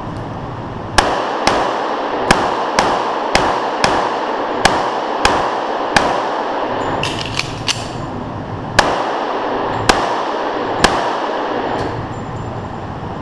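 A .45 ACP Springfield Armory 1911 pistol fired about a dozen times in quick strings, each shot echoing in an indoor range. Shots come about half a second apart, with a short break and a few light clicks just past halfway, then slower shots about a second apart.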